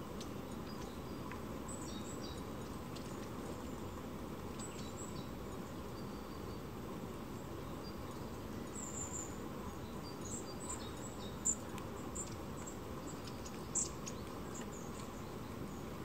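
Small songbirds giving short, high chirps and calls, scattered and more frequent in the second half, with two louder chirps near the end, over a steady low background noise.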